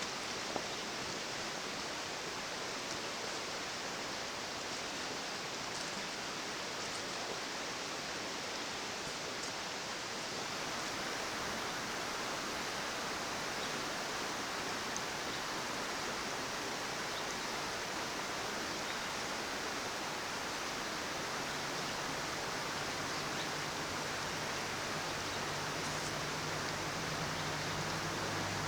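A rushing mountain river, its water running in a steady, even noise. A low steady hum joins in about three-quarters of the way through.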